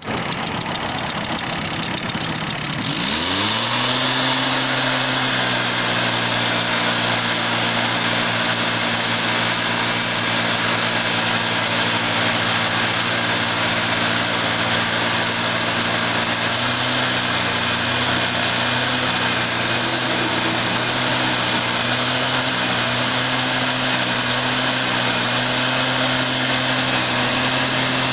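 Petrol backpack blower running slowly, then throttled up about three seconds in: the engine rises in pitch and settles into a steady high-speed run with a strong rush of air from the tube.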